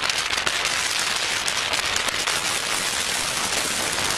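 Steady rushing hiss of wind blowing over a body-worn camera's microphone through the open window of a moving car, with road noise underneath.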